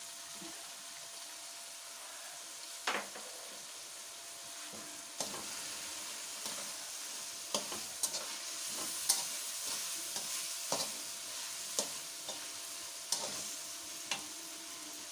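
Chicken pieces and spices frying in a metal pan over a gas flame, with a steady sizzle. A metal spoon stirs and scrapes in the pan, giving sharp clinks, first about three seconds in and then roughly every second.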